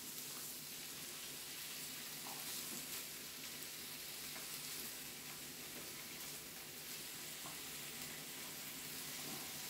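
Pork belly and kimchi frying on a hot Korean barbecue grill: a steady sizzle.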